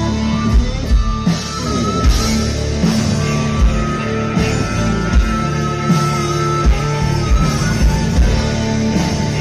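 Live blues-rock band playing: amplified harmonica played into a vocal microphone over electric guitar and drums, with a long held high note in the middle.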